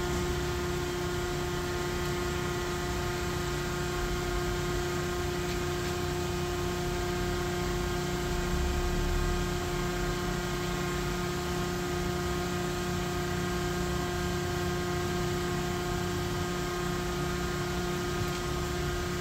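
DMG Mori NTX 1000 mill-turn machine running with a steady hum, one strong mid-pitched tone over a stack of fainter overtones, as its milling spindle head swivels through its rotation (B-axis). The hum swells slightly about eight seconds in.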